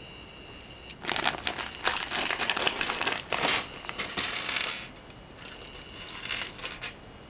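Plastic Lego polybag crinkling and small plastic Lego pieces clattering as they are tipped out, busiest for the first few seconds and thinning to a few scattered clicks near the end.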